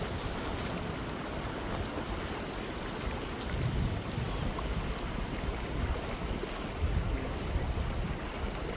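Steady rush of the Kasilof River, with wind gusting against the microphone now and then.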